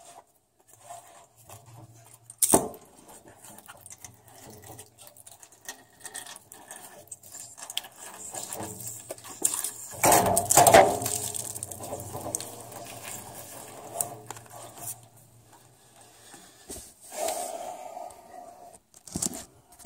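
Hands unscrewing a Rheem water heater's gas control valve from the full, airlocked tank and threading in the replacement valve. Scattered clicks, knocks and scrapes of the metal valve, with a louder noisy stretch about ten seconds in.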